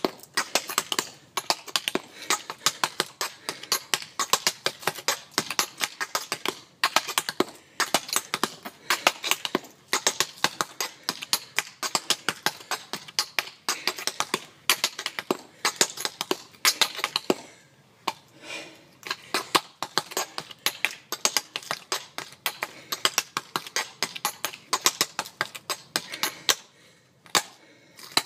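Tap shoes' metal taps striking a paved walkway in rapid tap-dance rhythms, many sharp clicks a second, easing off briefly twice.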